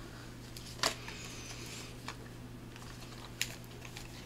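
A few light clicks, the loudest about a second in, with a faint rustle: coloured pencils and art supplies being handled on a table while someone searches for a pencil.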